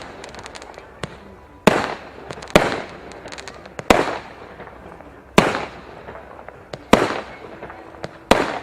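Fireworks battery ('Speed Limit' cake) firing shot after shot: six loud bangs about every second and a half, each fading out in an echo, with faint crackling between them.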